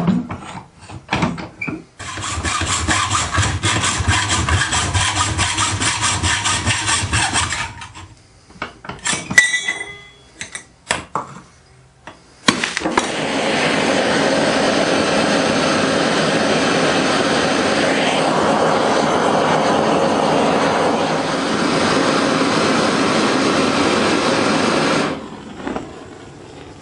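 Gas torch burner running with a steady rush for about twelve seconds as it heats a small copper boiler tube to a red glow, then shut off near the end. Before it come knocks and clinks of the tube being handled in a steel bench vise, and about six seconds of steady rasping metalwork on the tube.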